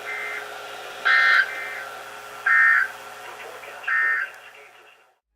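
NOAA weather radio receivers sounding the EAS/SAME end-of-message tones: three short, warbling digital data bursts about a second and a half apart, with fainter, slightly offset copies from other radios, marking the end of the weekly test.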